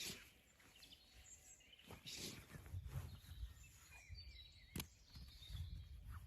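Faint outdoor ambience: a low rumble with scattered light clicks and rustles, one sharp tap about five seconds in, and short high chirps like distant birds.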